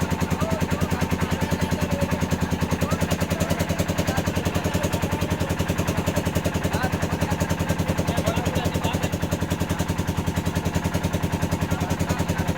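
A small engine running steadily at an even speed, with a rapid, regular pulse.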